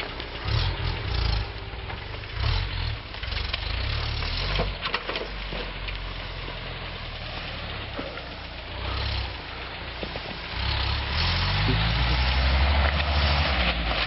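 Lifted pickup truck's engine running as it drives slowly through snow, with the revs rising for a couple of seconds near the end.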